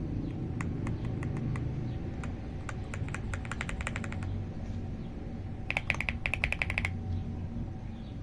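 Clicks from an AULA F75 MAX mechanical keyboard's keys and knob being operated. A few single clicks come first, then two quick, even runs of clicks; the second run, about six seconds in, is louder and sharper. A steady low hum runs underneath.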